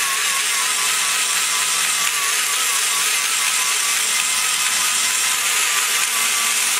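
Die grinder with a flame-shaped carbide burr on a long shaft running steadily, cutting the cast-iron intake port wall of a small-block Chevy cylinder head. A high whine that wavers slightly as the burr is swept up and down against the metal.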